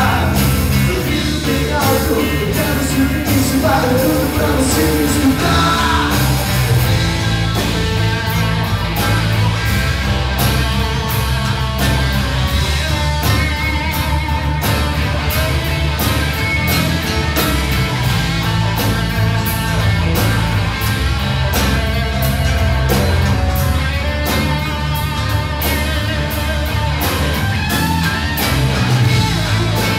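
Live rock band playing: electric guitars, bass guitar and drum kit, with steady drum beats throughout.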